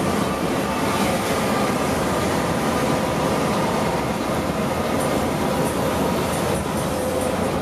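Steady interior noise of a Mercedes-Benz OH 1626 coach cruising on a highway: tyre and road rumble mixed with engine drone, heard from inside the cabin. Faint light ticks come in near the end.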